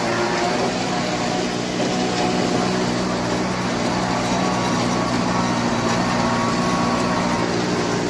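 Hürlimann H-488-T tractor's diesel engine running steadily, driving a Mengele 290 forage harvester through the PTO, with the harvester's machinery whirring along with it.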